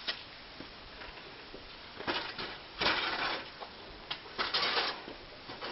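A metal step ladder being moved on concrete: several short scraping and clattering bursts, starting about two seconds in.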